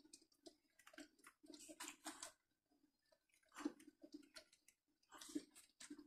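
Faint, irregular rustling and crinkling of large green leaves as leaf-wrapped tamales are handled and laid into a pot, with the most distinct rustles about three and a half and five seconds in.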